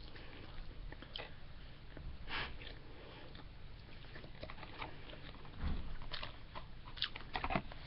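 A person chewing a mouthful of plain sticky white rice close to the microphone, with irregular wet smacking and clicking mouth sounds.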